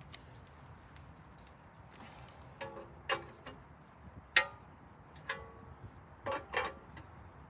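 Groove-joint pliers working against the sheet-metal tank-mount tabs on a lawn mower's overhead-valve engine as the tabs are bent up: a series of sharp metal clinks, some ringing briefly, the loudest about four and a half seconds in.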